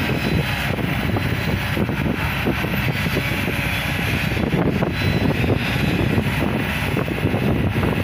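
Heavy diesel excavator engines running steadily at work, with a constant low hum.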